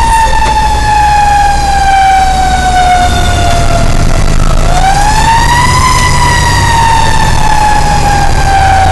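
Fire engine's siren wailing, heard from inside the truck's cab: the pitch slowly falls, sweeps back up about halfway through, then slowly falls again. The truck's engine runs underneath as a steady low rumble.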